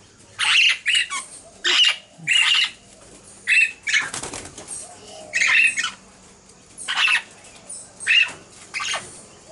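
Princess parrots giving a run of short, harsh calls, roughly one a second, with a longer rustle of wing flapping about four seconds in.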